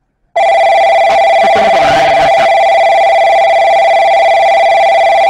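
Station platform train-approach alert over the PA speakers: a loud, steady electronic ringing tone that starts about half a second in and holds for about five seconds, signalling that a train is approaching the platform.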